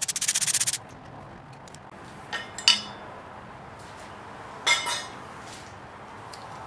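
Hand ratchet clicking rapidly as it backs out a bolt, stopping just under a second in. Two short, ringing metal clinks follow, a couple of seconds apart, as small metal parts knock together.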